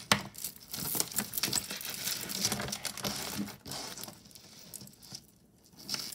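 Jewelry being handled by hand: metal and bead pieces clinking and rattling against each other, with rustling. It is busy in the first half and quieter after, with a sharper clink near the end.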